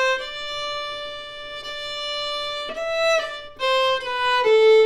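Solo violin played as a fiddle, bowing a slow, plain phrase of an old-time tune in G major: a long held note, a brief step up to a higher E stopped with the fourth finger about three seconds in, then the melody walks down through lower notes to close the phrase.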